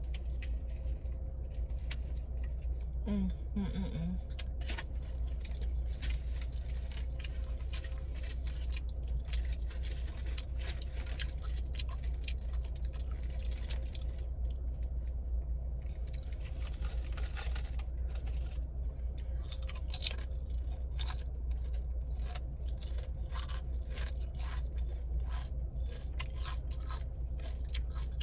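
Close-up chewing and mouth sounds of someone eating a sub sandwich: many short, irregular wet clicks and crunches. A steady low hum runs underneath inside the car.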